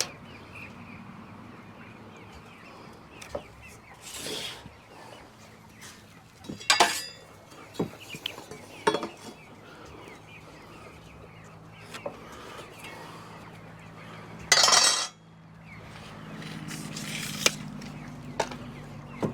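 Carpentry work: scattered knocks and metallic clinks of boards and hand tools being handled, with one louder half-second rasping burst about fifteen seconds in. A low steady hum comes in during the second half.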